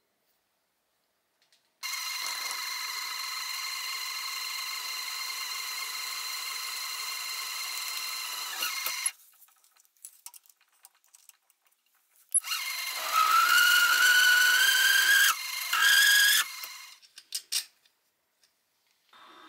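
An electric power tool motor runs steadily for about seven seconds and stops. A few seconds later it runs again, louder, its whine rising slowly in pitch, then breaks off briefly and runs once more before stopping.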